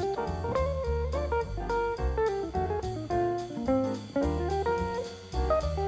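Background music: a jazzy plucked-guitar melody over bass and a steady drum beat.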